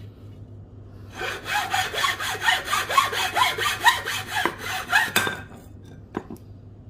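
Hacksaw cutting through a wooden batten by hand: quick back-and-forth rasping strokes, about four a second, that start about a second in and stop about five and a half seconds in. A couple of light knocks follow near the end.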